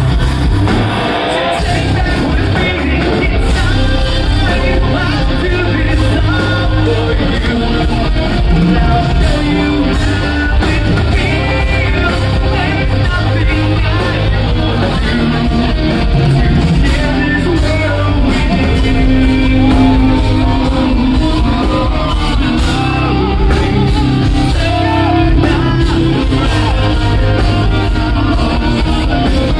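Rock band playing live, with electric guitars, bass and drums and a vocalist singing and shouting into a microphone, heard from the crowd in a large hall.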